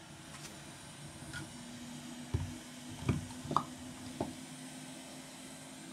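Quiet workbench handling during a board repair: four soft knocks and taps over the middle of the stretch. Under them, a faint steady low hum sets in about a second and a half in.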